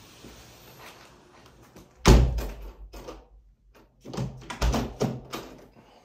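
Heavy thuds and knocks ringing in a bare concrete-block room: one loud bang about two seconds in, then a cluster of several knocks a couple of seconds later.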